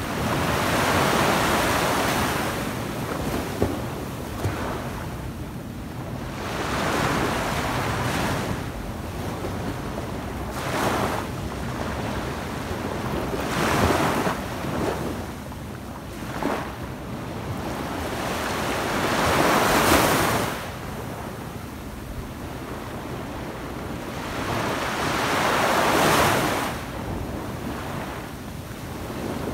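Small waves breaking and washing up a sandy beach, the surf noise swelling and fading about six times, strongest about two-thirds of the way through.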